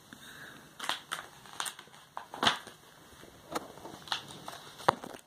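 Pages of a paper picture book being handled and turned: a string of short, papery rustles and flaps, about seven in all, the loudest about halfway through.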